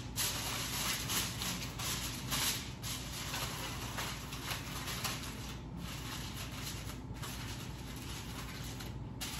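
Aluminium foil crinkling as it is wrapped over a dish, in uneven bursts for the first three seconds, then quieter rustling.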